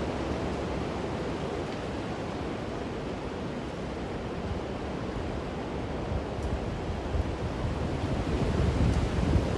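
Strong gusting wind blowing across the microphone, a steady rushing noise that swells into harder gusts near the end.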